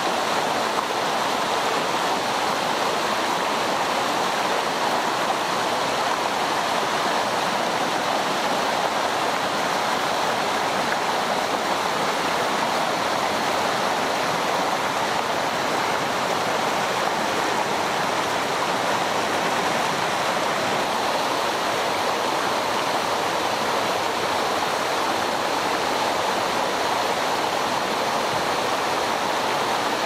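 Mountain stream rushing over rocks and boulders through shallow riffles, a steady, even wash of water.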